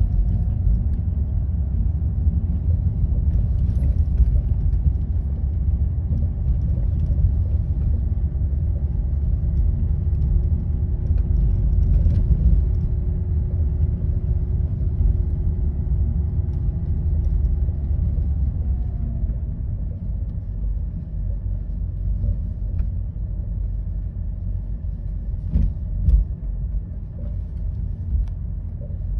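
Cabin sound of a VW Golf R Mk7.5 on the move: a steady low road rumble with a faint whine that drops in pitch about two thirds of the way through. A few sharp knocks come at irregular moments, the odd squeaking and knocking noise the owner is trying to trace.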